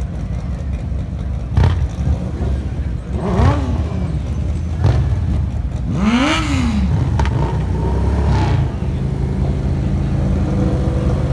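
Bagger motorcycle engines idling at the start line while the riders blip the throttles. There are a couple of sharp short revs and two longer revs that rise and fall in pitch, about three and six seconds in, before the engines settle to a steady idle.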